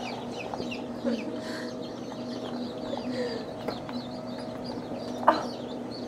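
A crowded tub of day-old chicks peeping, many high falling peeps overlapping without pause. A steady low hum runs underneath, and a single sharp knock comes about five seconds in.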